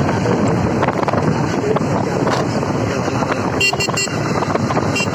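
Wind rushing over the microphone of a motorcycle riding along a road, with the bike's engine and tyre noise underneath. Short high-pitched tones sound about three and a half seconds in and again near the end.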